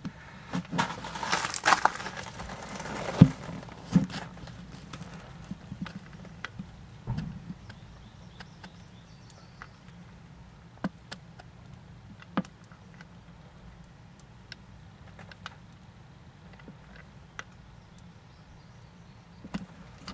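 Rustling and a cluster of knocks in the first four seconds, the loudest about three seconds in, then scattered single sharp clicks over a faint steady low hum.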